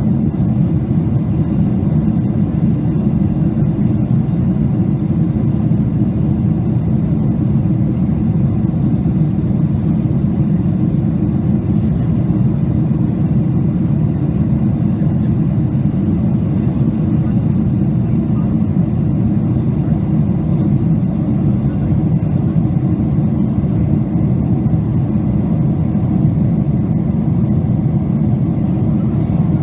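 Steady low drone of an airliner cabin at cruise: engine and airflow noise heard through the fuselage, unchanging throughout.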